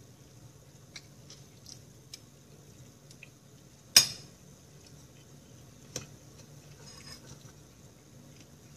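Metal spoon clinking against a ceramic bowl of rice: a few light taps early, one sharp clink about four seconds in, and a smaller one about two seconds later.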